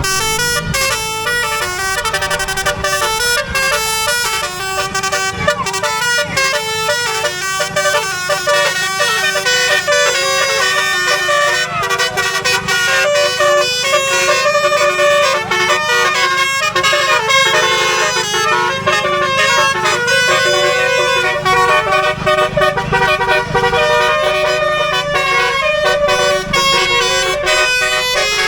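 Bus telolet horns, multi-tone musical horns, playing quick melodic tunes with notes changing several times a second, with some sliding notes. A steady low rumble runs underneath.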